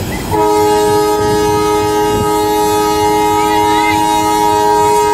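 Train locomotive's air horn sounding one long, steady blast, a chord of several tones, starting about a third of a second in and held for nearly five seconds before cutting off.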